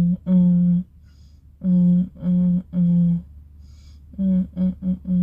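A woman humming a rhythm on one unchanging pitch: held notes in groups with short pauses between, ending in four quick, shorter notes.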